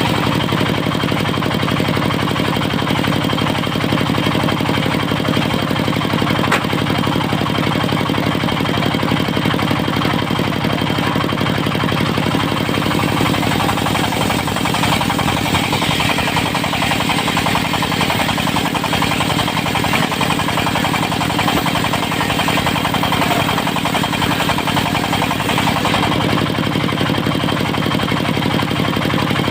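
Diesel engine of a portable circular-saw sawmill running steadily, with a brighter hiss joining for about ten seconds midway through.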